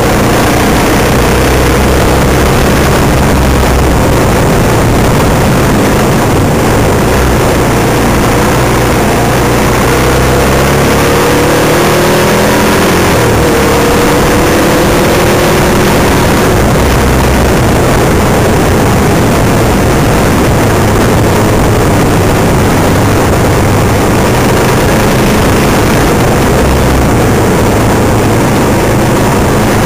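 Off-road vehicle engine running while riding a dirt trail, under a loud, steady rushing noise. Around the middle the engine's pitch rises and falls as the throttle changes.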